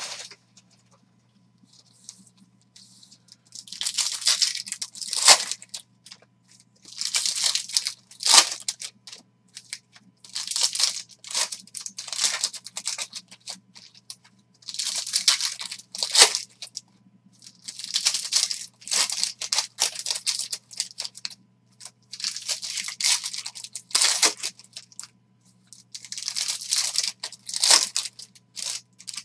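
Foil wrappers of Stadium Club Chrome baseball card packs being torn open and crinkled by hand, pack after pack, in bursts of a second or two with short pauses between.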